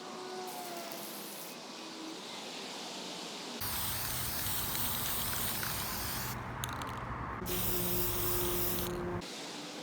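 Steady hissing spray. About three and a half seconds in it becomes louder and fuller, and it drops back abruptly near the end.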